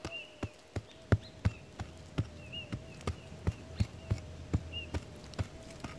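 Steel-headed HART pick chopping repeatedly into loose clay soil, about three strikes a second, digging out a metal-detector target.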